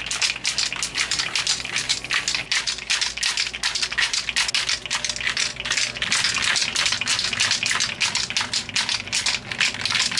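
A Duracoat two-part aerosol can being shaken hard by hand, its mixing ball rattling in a fast, even rhythm. The shaking mixes in the hardener just released from the can's internal cylinder.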